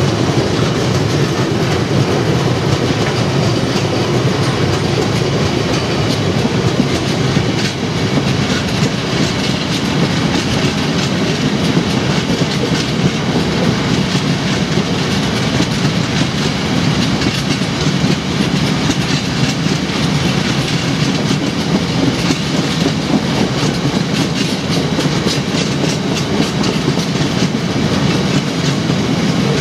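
Freight train's tank wagons rolling past close by: a steady, loud rumble of steel wheels on rail with many rapid wheel clicks, unchanging throughout.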